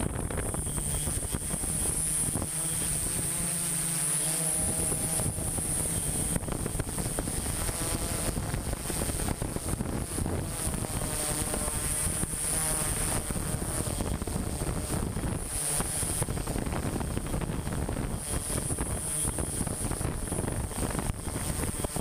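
Multirotor drone's propellers whirring steadily, with a constant high whine from its motors.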